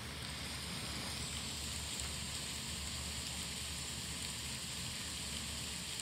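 Heavy, wind-driven rain coming down in sheets: the steady, even hiss of a downpour.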